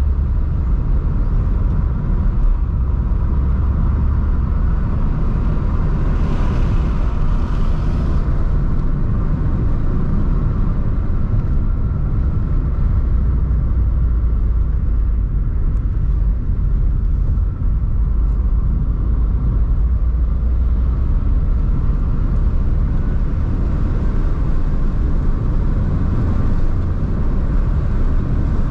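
Car being driven: a steady low rumble of road and engine noise, with a brief hiss about six seconds in.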